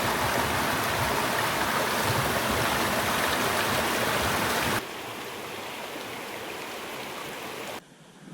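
Steady rushing of creek water. It drops abruptly to a quieter level about five seconds in and dips again just before the end.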